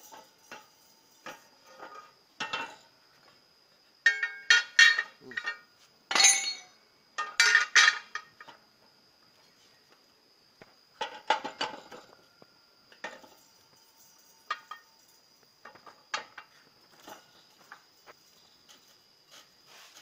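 Steel parts of a motorcycle wheel-straightening machine clanking and clinking as a black alloy wheel and the machine's curved steel clamp pieces are handled and knocked together, in loud clusters of knocks about four to eight seconds in and again around eleven seconds, with scattered lighter clicks elsewhere. A thin steady high tone runs underneath.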